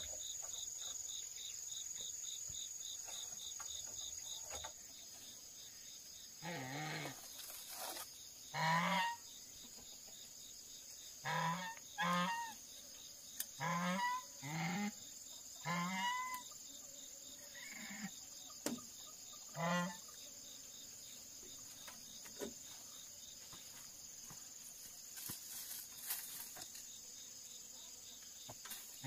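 Domestic geese honking, about eight short calls spaced over some thirteen seconds, over a steady high insect drone.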